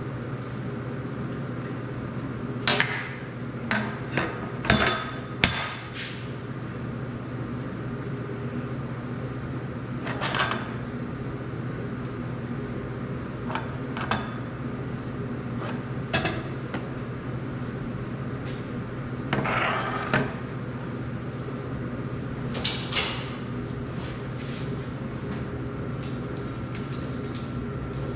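Scattered sharp metallic knocks and clinks from handling steel screw clamps on a steel pipe and setting a long level on and off it, over a steady low hum.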